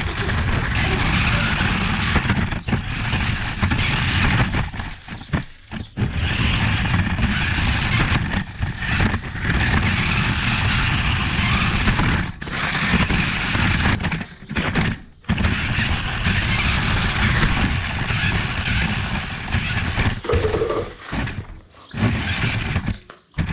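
Toy remote-control cars running, a rough motor-and-wheel noise that stops and starts abruptly several times.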